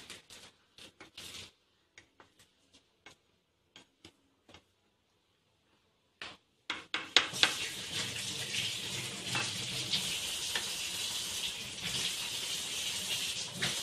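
Sugar syrup boiling in a shallow pan while being stirred: a spatula clicks lightly against the pan now and then, then from about seven seconds in a steady bubbling hiss sets in.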